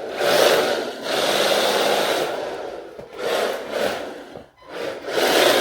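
HPI 1/10-scale electric RC drift car running on a floor: its motor whirs and its tyres scrub in throttle bursts, dropping off briefly about three and four and a half seconds in.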